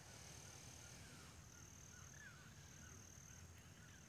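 Near silence with faint open-air ambience: a string of short, soft bird chirps over a steady high-pitched insect buzz.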